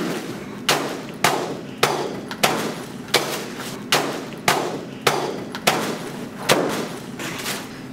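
A stick whacking a paper piñata on the floor: about a dozen hard hits, roughly one every half second or so, each with a short rattling tail.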